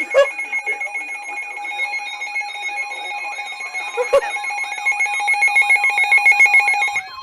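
Emergency Alert System attention signal before a flood warning: a loud, steady two-tone alarm that cuts off sharply about seven seconds in, with two sharp clicks, one just after it starts and one about four seconds in.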